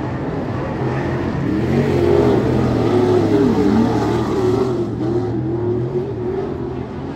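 Several dirt-track stock car engines running on the track at racing speed, their pitch falling and rising as they lift and get back on the throttle through the turns, loudest about two to four seconds in.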